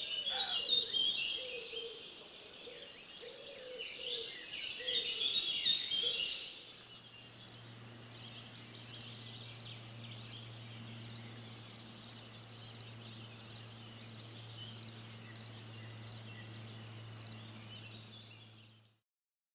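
Birdsong: several birds singing over one another, with a lower wavering call beneath, for the first six seconds. Then short chirps repeated at a steady pace over a steady low hum. The sound cuts off abruptly near the end.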